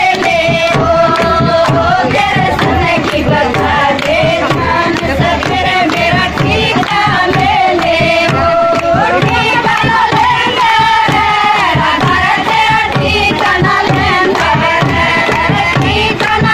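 Haryanvi folk bhajan music: a held, gliding melody line over a steady, fast hand-drum beat.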